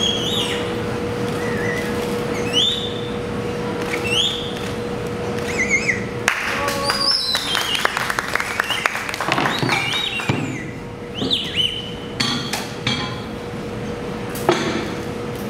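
Short, bird-like rising chirps repeat about every second and a half over a steady hum, with a quick run of clicks about six seconds in.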